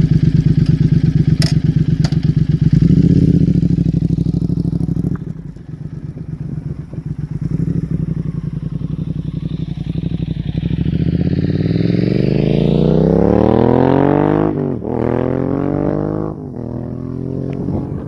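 Triumph Thruxton R's 1200 cc parallel-twin engine through a cat-deleted 2-inch two-into-one exhaust with a Meerkat muffler. It runs loud near the microphone, then drops off suddenly about five seconds in. It then climbs in pitch as the bike accelerates closer, and passes by near the end with a sharp drop in pitch as it rides away.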